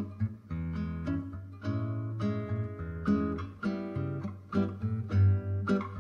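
Background music led by a strummed acoustic guitar, with a new chord struck about twice a second over a steady low bass.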